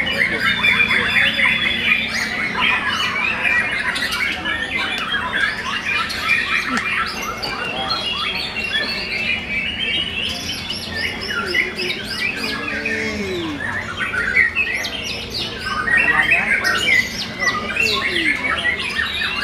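Young white-rumped shamas (murai batu) in hanging contest cages singing together, a dense, unbroken chorus of quick rising and falling notes from many birds at once.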